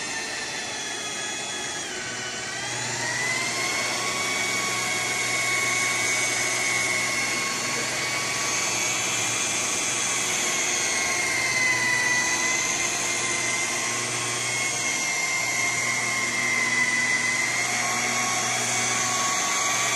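Corded rotary polisher running with its buffing pad on car paintwork: a steady electric-motor whine. The pitch dips about two seconds in, climbs back a second later, and wavers gently as the pad is worked over the panel.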